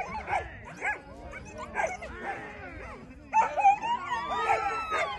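Several dogs yelping and whining excitedly all at once, in many short rising-and-falling cries, getting louder from about three seconds in.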